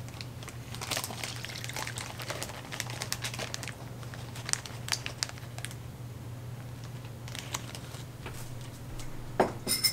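Plastic zip-top bag crinkling and rustling as marinade is poured into it from a bowl, with scattered light clicks and taps over a steady low hum.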